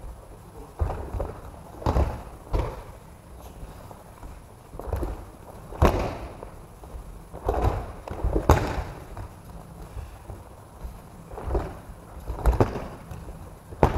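Bodies thudding onto tatami mats as partners are thrown and take breakfalls, about a dozen irregularly spaced thuds and slaps, with a short echo in a large gym hall.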